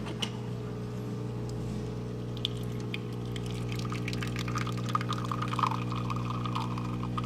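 Miele CVA 6800 coffee machine dispensing espresso into a cup: a steady pump hum, with coffee trickling and splashing into the cup more audibly from about two and a half seconds in.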